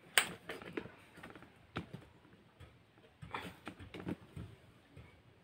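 Handling noise from a phone being held and moved into place: scattered light knocks and clicks, the sharpest a tap just after the start and a small cluster about three to four seconds in.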